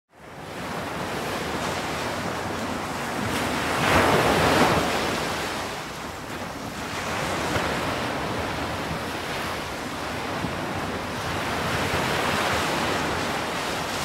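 Ocean surf: waves breaking and washing in a steady rush that swells to its loudest about four seconds in, then eases.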